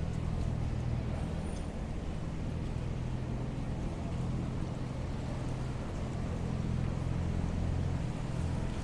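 Steady low engine hum of street traffic, with a vehicle running close by.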